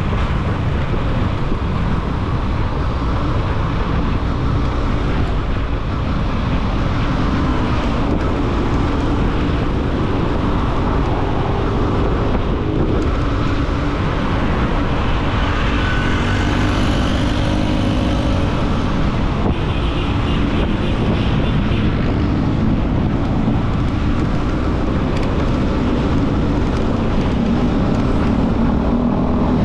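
Motorcycle under way at steady cruising speed: wind rushing over the microphone over the engine's running note and tyre noise, with other traffic on the road.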